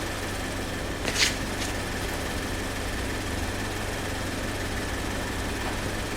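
Car engine idling steadily, with a short sharp click about a second in.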